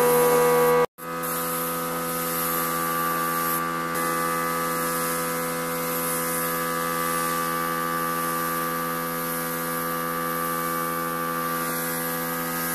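Compressed-air paint spray gun hissing while spraying, over a steady electric hum made of several fixed pitches. The sound drops out briefly about a second in, then runs on unchanged.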